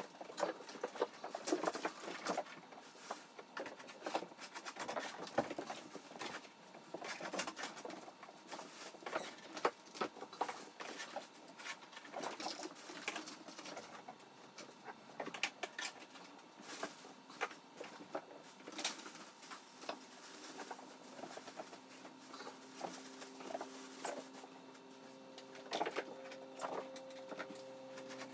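Cat litter being scooped in a plastic litter box and a plastic bag rustling, with many small clicks, scrapes and scratches. A low steady hum comes in after about twenty seconds.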